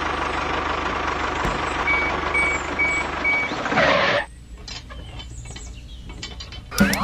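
A vehicle engine running steadily, with four short, evenly spaced high beeps like a reversing alarm about two seconds in. The engine sound stops about four seconds in, leaving quieter clicks and rattles.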